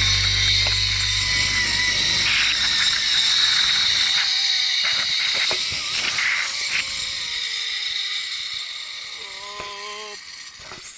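Zipline trolley pulleys running fast along the steel cable with wind rush: a steady high whir and hiss that fades over the last few seconds as the rider slows toward the end of the line.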